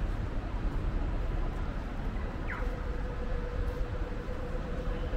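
Steady city background noise with a low rumble. About two and a half seconds in, a short falling squeak sounds, and then a steady hum sets in.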